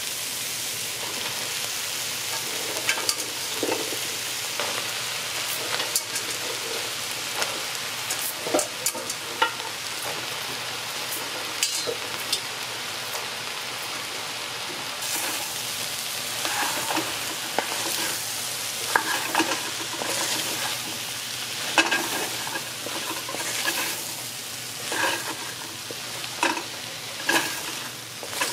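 Curried saltfish and onions sizzling in a pot as chunks of raw pumpkin are added and stirred in with a wooden spoon, with scattered knocks and scrapes of the spoon against the pot.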